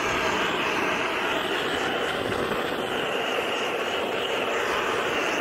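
Gas torch burning steadily while it heats a heat-shrink sleeve on a medium-voltage XLPE cable joint, shrinking it down onto the core.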